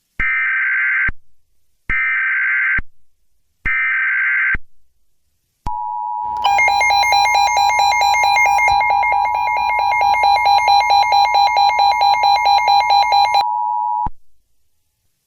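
Emergency Alert System tones: three short screeching bursts of SAME header data about a second apart, then a steady weather-radio alert tone near 1 kHz. From about a second after the tone starts, a louder, rapidly pulsing alarm is layered over it for roughly seven seconds, and the plain tone then runs on briefly alone before cutting off.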